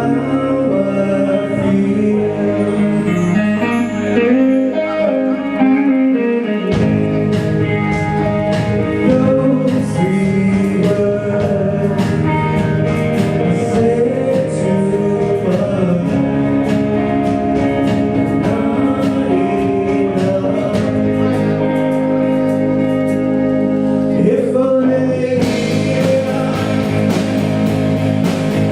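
Music: a song with a singing voice over guitar, the low bass part coming back in about seven seconds in.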